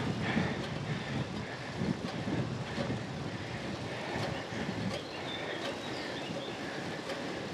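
Riding noise from a road bicycle climbing slowly: tyres rolling on tarmac and wind on the microphone, an uneven steady rumble with a few faint clicks.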